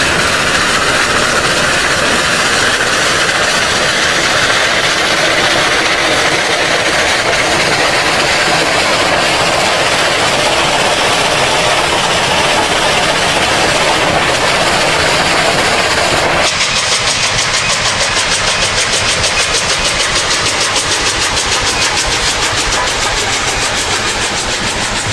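Train running, a loud steady rush of rail and machine noise. About 16 seconds in it changes abruptly to a fast, even pulsing.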